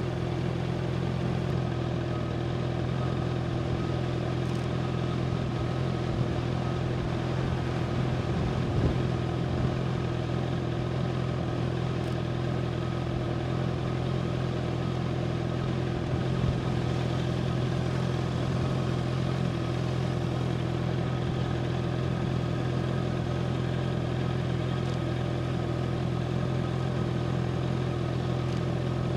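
Honda CBR650R inline-four motorcycle engine idling steadily at constant pitch, with a couple of light knocks about nine and sixteen seconds in.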